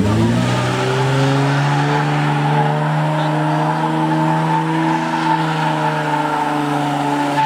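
A car engine revs up and is held at steady high revs for several seconds over a hiss of tyre noise, as in a burnout or donut.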